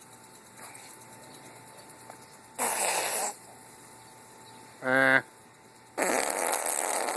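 Imitation fart sounds made by a person. A short noisy blast comes about two and a half seconds in, then a brief low buzz, and a longer noisy blast starts about six seconds in.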